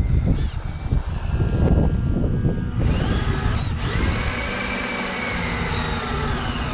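The RC tug's small electric drive motor whines, rising in pitch about three seconds in and then holding steady. Under it runs an uneven low rumble from water and wind at the deck-mounted camera, strongest before the whine rises.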